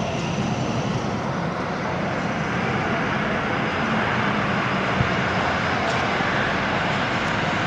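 Single-deck city bus engine running as the bus pulls out and drives past close by, the noise building over the first few seconds and then holding steady.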